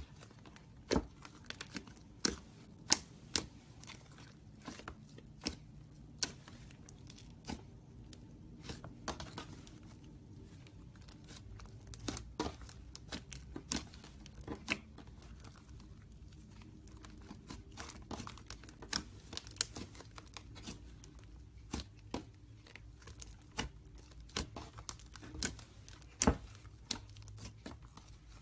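Slime being handled: irregular sticky clicks and pops, some much louder than others.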